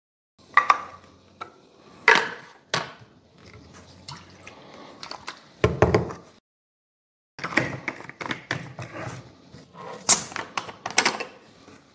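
Plastic bottles and screw caps handled on a wooden table: scattered clicks and taps as a syrup bottle's cap is closed and a soda bottle's cap is screwed on. There is a heavier knock a little before the middle, and liquid moves in the bottle.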